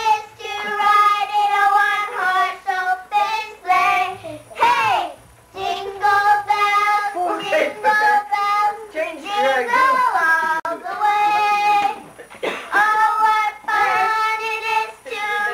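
A young child singing a song in long held high notes, with short breaks between phrases.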